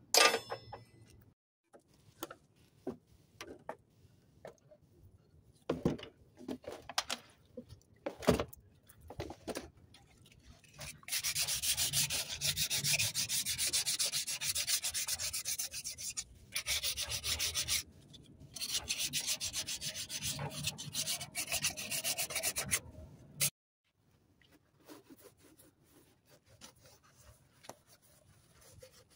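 A Yanmar TF160 diesel engine part being scrubbed by hand in a washing tub: a dense, rapid scraping that starts about a third of the way in, breaks off twice briefly and stops sharply. Before it, scattered knocks and clicks of metal parts being handled.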